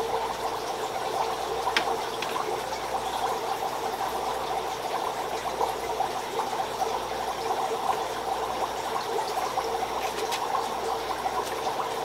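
Steady bubbling and trickling of aquarium water from an air-driven sponge filter, with a faint tap about two seconds in.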